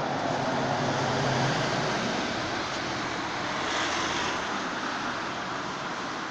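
Articulated city bus driving past close by: engine and tyre noise, loudest about a second in, then fading as the bus pulls away down the street.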